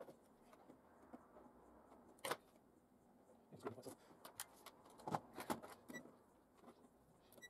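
Faint clicks and knocks of bench test meters and their probe leads being handled, then a UNI-T UT612 handheld LCR meter switching on and giving a short electronic beep at power-up about six seconds in, with another short beep at the very end.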